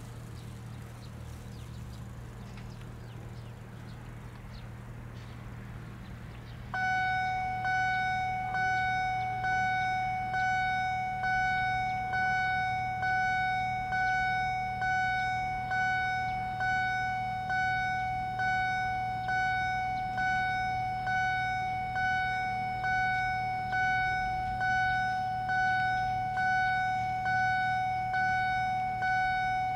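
Level-crossing warning bell starting about seven seconds in and ringing steadily a little more than once a second, each strike a clear ringing tone that fades. It is the crossing's alarm warning road users of an approaching train while the barriers lower. Before the bell starts, only a low steady hum is heard.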